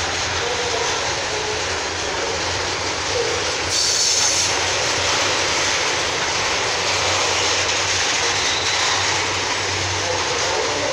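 Steady rumble of a freight train of tank wagons rolling past on the adjacent track, with a brief high screech about four seconds in.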